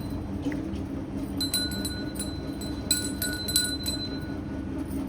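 A small metal bell on the cow's neck ringing and clinking in short runs as the animal shifts, over a steady low hum.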